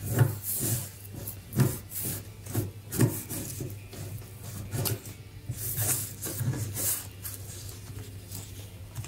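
Hands handling a small plastic action figure and its fabric cape: irregular rubbing and light knocks, roughly every half second.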